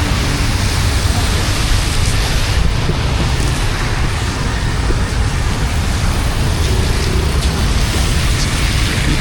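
Steady rushing of floodwater and rain, with a heavy low rumble.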